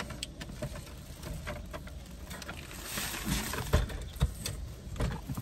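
Handling noises from a car-seat food tray being lifted and pushed into place behind the seat: scattered clicks and rustling, with a few low thumps from about three and a half seconds in as it catches on something in the way.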